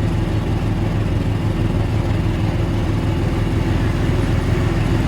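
A vehicle's engine running steadily, a low even hum, as they drive around.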